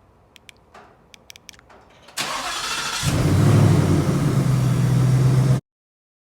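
2020 Ford Mustang GT's 5.0 V8 warm start: a few light clicks, then about two seconds in a loud burst as the starter turns it over, and a second later the engine catches and runs at a steady idle. It is a short, quick start with a clicking or popping sound that the owner considers not normal.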